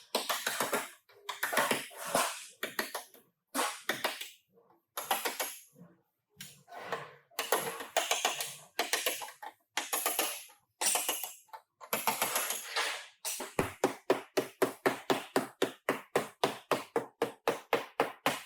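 Auto body repair work noise: short bursts of rasping, scraping work with pauses between. Then, about two-thirds of the way through, a hammer starts striking sheet metal in a steady run of about four blows a second.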